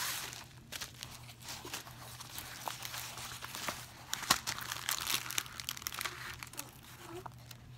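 Plastic packaging of a diamond painting kit crinkling and crackling as it is handled and opened, in quick irregular crackles with a sharp snap about four seconds in.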